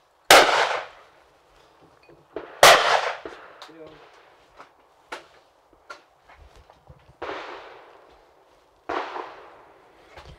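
Two loud shotgun shots about two seconds apart from a side-by-side hammer shotgun, each with a ringing tail, followed by light metallic clicks of the gun being handled. Later come two quieter shots from farther off.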